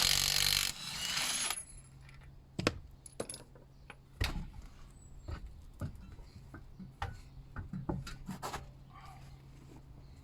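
A short loud burst of hiss at the start, then scattered metallic clinks and knocks of hand tools and car parts being handled during brake work, over a steady low hum.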